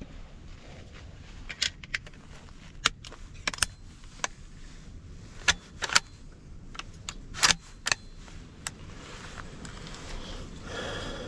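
A string of sharp, irregular metallic clicks as cartridges and the box magazine are handled and loaded into a scoped .30-06 rifle.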